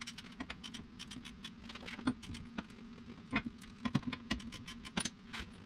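Irregular light metallic clicks and taps of hand tools and hardware being handled on a car's front suspension, over a faint steady hum.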